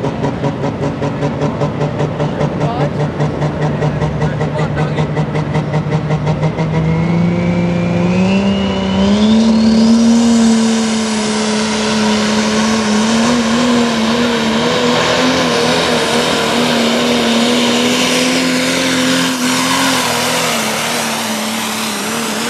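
Modified 4x4 pulling truck engine at full power. It runs with a rhythmic pulsing note, then about seven seconds in its pitch climbs with a rising whine and holds at a high, steady note as the truck pulls the weight sled down the track.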